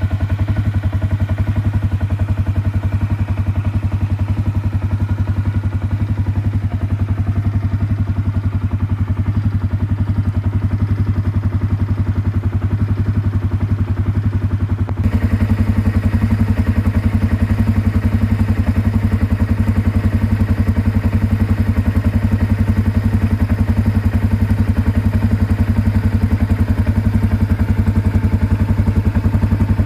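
Can-Am Outlander 400 ATV engine idling steadily. About halfway through the sound suddenly gets louder and fuller.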